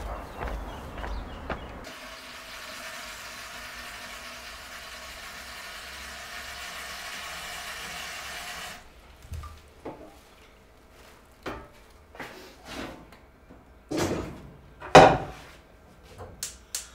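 Footsteps on a path at first, then a kitchen tap running into the sink as a steady hiss for about seven seconds, cut off abruptly. After a quiet pause come scattered knocks and clatters of cookware on the counter, the loudest about fifteen seconds in, with a quick run of small clicks near the end.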